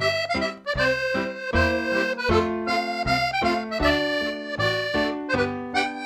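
Excelsior piano accordion playing a polka: a melody on the right-hand keyboard over a steady alternating bass-and-chord beat from the left-hand buttons.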